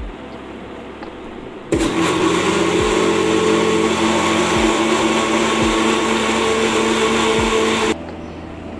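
Bajaj electric mixer grinder switched on about two seconds in, its motor running at a steady high speed as it blends the liquid egg-and-milk mix in its jar, then switched off abruptly about six seconds later.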